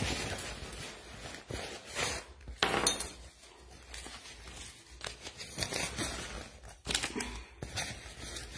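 Scattered rustling, crinkling and light clicks of small items being handled while a bag is got ready, coming in short irregular bursts.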